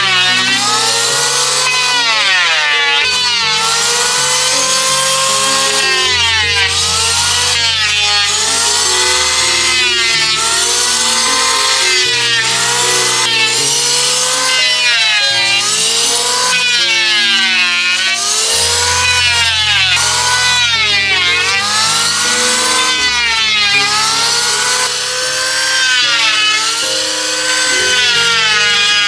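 Hand saw cutting wood in repeated strokes, each stroke giving a whine that rises and falls in pitch, about one stroke a second. Background music with a stepping bass line plays underneath.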